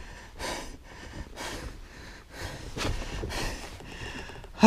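A man breathing hard close to the microphone, a series of heavy breaths about one a second, winded and excited from landing and holding up a heavy pike.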